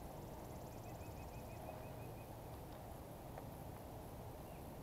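Faint outdoor ambience with a steady low rumble. About a second in, a bird gives a quick run of about nine short, evenly spaced chirps, and a few light clicks come later.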